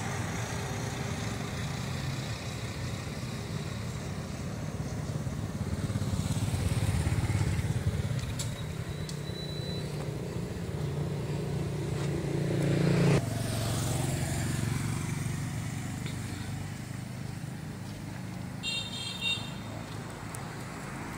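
A motor vehicle's engine, likely a motorcycle, running with a steady low rumble. It grows louder in the middle and drops away suddenly about two thirds of the way through. Near the end comes a brief high beeping.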